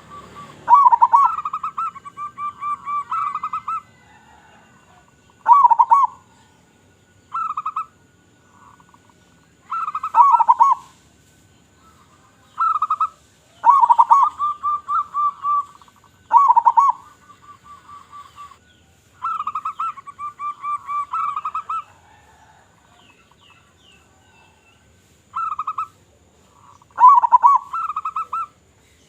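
A local zebra dove (perkutut) cooing. It gives about ten phrases of quick, rolling coos at a steady pitch, separated by pauses of one to three seconds.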